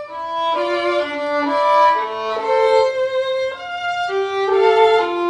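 Solo violin, bowed, playing a melody of sustained notes that move from one pitch to the next.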